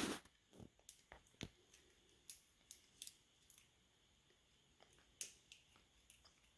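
Faint, irregular small clicks of a hook pick and tension bar working the pins inside a cheap padlock, with one louder click right at the start.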